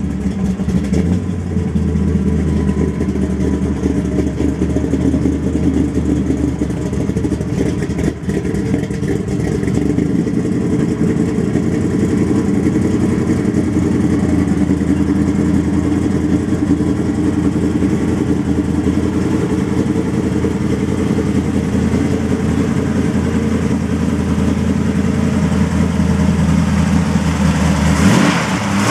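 The custom 1972 Chevy pickup's V8 idling steadily, with a short louder burst near the end.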